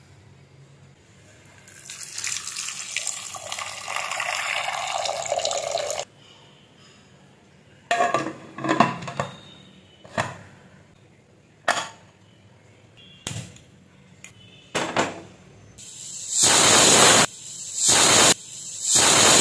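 Water runs into an aluminium pressure cooker for about four seconds. Then comes a string of metal knocks and clanks as the lid and weight are handled. Near the end, the cooker's whistle vents steam in three loud hissing blasts.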